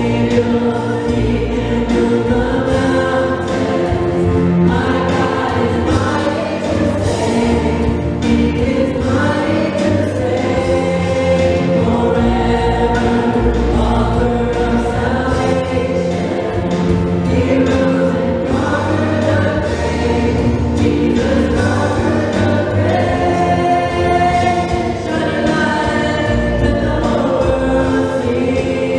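A live contemporary worship band playing: several voices singing together over electric guitar, drums and keyboard, amplified through the room's PA.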